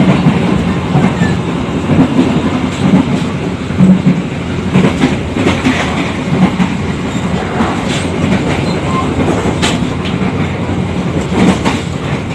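Passenger train of the KA Joglosemarkerto running at speed, heard from inside the carriage: a steady rumble of the wheels on the rails, with sharp clacks of the wheels over the rail joints now and then, more of them in the second half.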